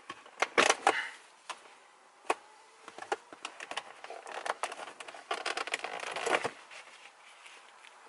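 Leather shift boot and its clip-in plastic frame on a BMW E46 being worked loose and pulled up off the centre console around the shift lever: scattered plastic clicks and small knocks, then a busier run of clicking and scraping from about three to six and a half seconds in as the frame's clips come free.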